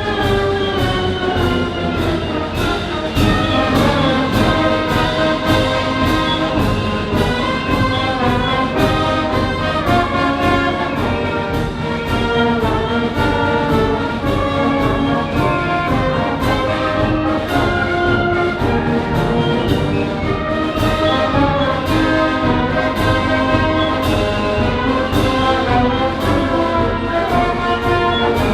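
Orchestral music led by brass, with a steady percussive beat of about two strokes a second.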